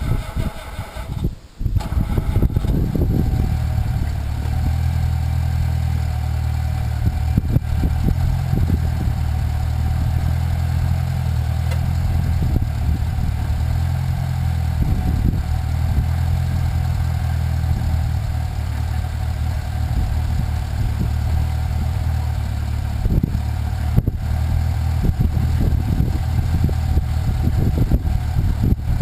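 The homemade backhoe's engine running at a steady, low drone, with a short break about a second and a half in.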